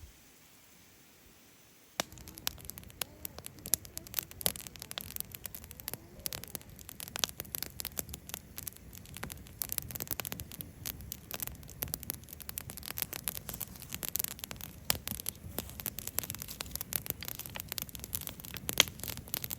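Wood campfire crackling, with frequent irregular sharp pops. It starts abruptly about two seconds in, after near quiet.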